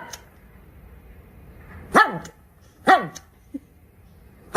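Dog barking: a few short, sharp single barks about a second apart, each dropping in pitch.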